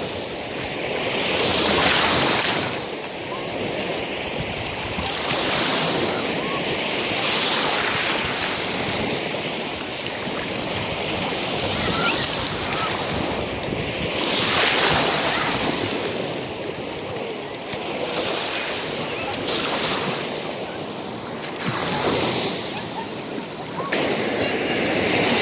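Sea waves breaking on a sandy beach, the surf swelling and washing in every few seconds.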